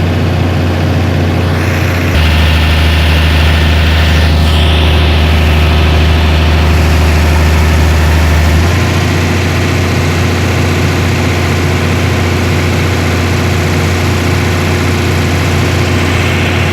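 Heavy-equipment diesel engine running steadily with a low hum; it runs louder and deeper from about two seconds in until about eight and a half seconds in, then settles back to its earlier steady note.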